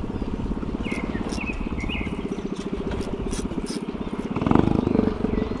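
Boat engine running with a steady, rapid chug that gets louder about four and a half seconds in. A few short, high chirps sound about a second in.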